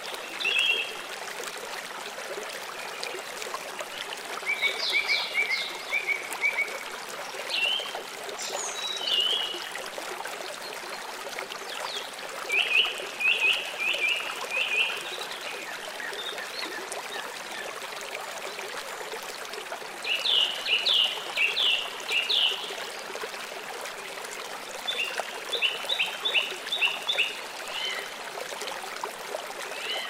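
Nature ambience of a steadily running stream, with about five groups of rapid, high chirping animal calls, each group a few quick notes lasting one to three seconds.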